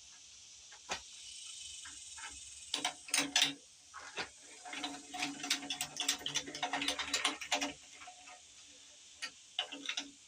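Bursts of rapid metallic clicking from a ratchet wrench and socket working the cylinder head bolts off a V8, with a steady high insect buzz underneath.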